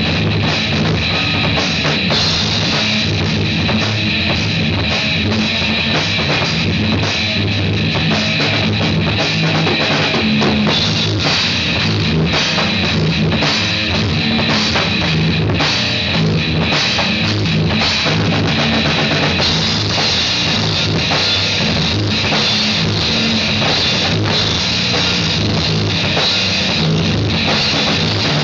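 Drum kit and guitar playing loud, continuous heavy rock, with dense drum hits throughout.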